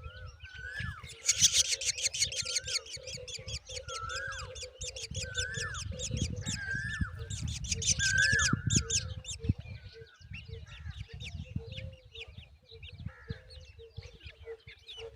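Black drongo nest: rapid high chirps that thin out after about nine seconds, with a short rising-and-falling whistled note repeated about once a second, over a low rumble.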